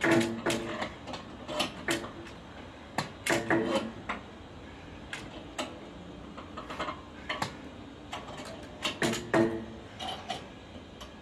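Irregular metal clanks and knocks as clamps and fittings on a steel wood-bending jig are worked by hand, some strikes ringing briefly.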